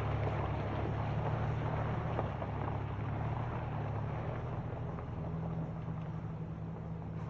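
SUV engine running as the vehicle drives away on a dirt road, a low steady hum that slowly fades.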